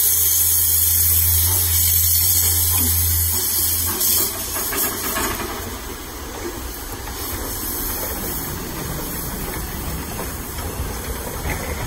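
Small narrow-gauge steam locomotive hissing out steam as it sets off. The hiss is loud for about the first four seconds, then eases to a softer, steady rush.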